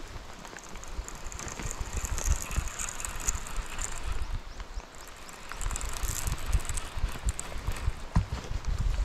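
Uneven low rumble of wind buffeting the microphone over a steady hiss of heavy rain on the water. A Shimano Antares DCMD baitcasting reel is being wound to retrieve the lure, with faint ticking, and the rumble grows louder about halfway through.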